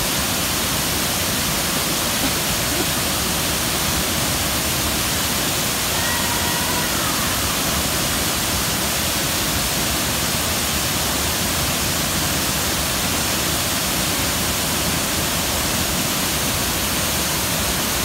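Large waterfall plunging into a rocky pool, its roar and the churning rapids making a steady, even rush of white noise.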